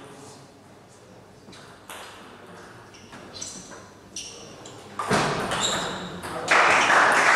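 A few light clicks of a table tennis ball, then about five seconds in a sudden rise of loud crowd noise from spectators in the hall, swelling near the end into a loud, dense, even clatter.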